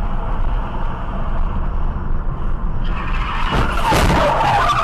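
Steady road and engine noise inside a moving car. About three seconds in, tyres begin to skid, and a crash follows with sharp crunching impacts near the end, the loudest moment.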